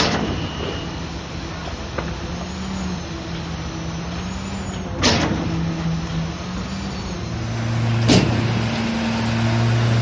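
Putzmeister concrete boom pump pumping, its diesel engine running steadily and growing louder a little past halfway. Three sharp bangs come a few seconds apart as the pump's valve shifts at each stroke changeover.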